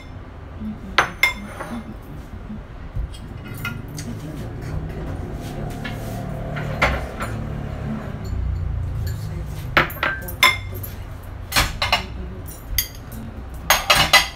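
Kitchen clatter: a saucepan, bowls and cutlery clinking and knocking as they are handled, in scattered sharp clinks with a quick run of them near the end.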